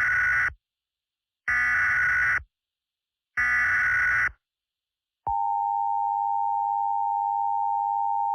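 Emergency Alert System SAME header: three short bursts of screechy digital data tones about two seconds apart, followed about five seconds in by the steady EAS attention tone.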